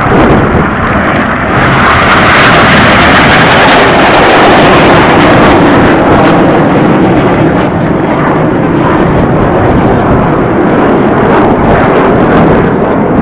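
Loud jet engine noise from the Red Arrows' BAE Hawk T1 jets flying past. It rises at the start, is strongest about two to four seconds in, and stays loud throughout.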